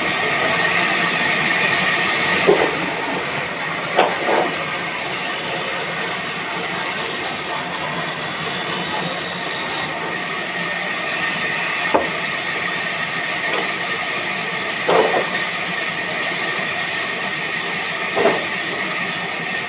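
Sawmill machinery running with a steady loud hiss, with a few sharp knocks scattered through it.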